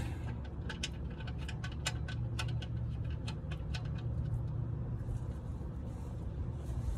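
Engine oil dripping from the drain hole into a drain pan in irregular light ticks, several a second, near the end of draining, over a steady low hum.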